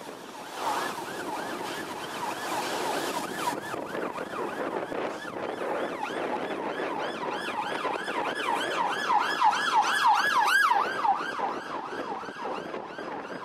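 LNER A4 steam locomotive 4464 Bittern and its support coach passing slowly, with a high squeal that rises and falls about four times a second, loudest near the end.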